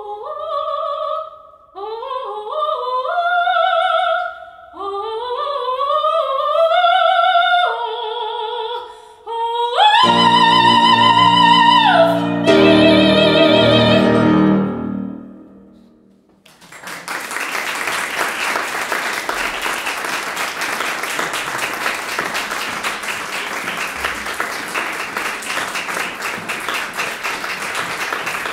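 A female classical singer sings the closing phrases of a song with grand piano accompaniment. The piano comes in with full chords under a last held note, which fades out about halfway through. A little later applause begins and continues steadily to the end.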